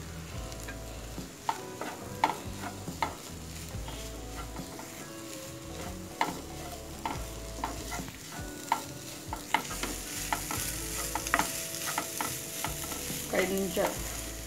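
Wooden spatula stirring and scraping fish scramble in a nonstick frying pan, with irregular knocks against the pan over a light sizzle of frying. Freshly added coriander and spring onions are being mixed through in the final stage of cooking. The sizzle gets louder about two-thirds of the way in.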